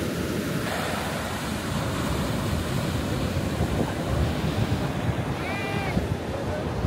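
Steady rush of ocean surf with wind buffeting the microphone, the wind making an uneven low rumble.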